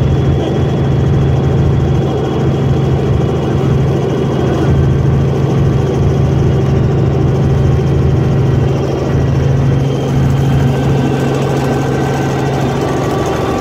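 Helicopter in flight heard inside the cabin: the steady drone of its engine and rotors, a strong low hum with several steady higher tones above it.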